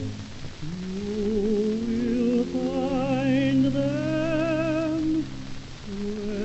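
Background music: a slow melody of long held notes with a wavering vibrato over sustained low notes.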